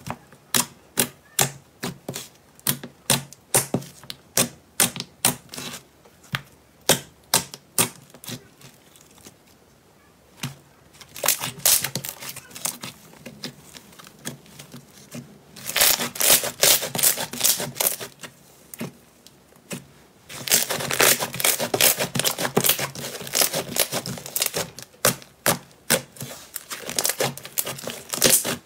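Crunchy slime being pressed and poked by hand: sharp clicks and pops, about two a second, for the first several seconds. Then come two long stretches of dense crackling as it is squeezed.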